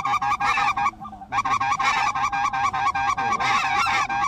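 Rapid, overlapping goose honking, many honks a second, with a short break about a second in.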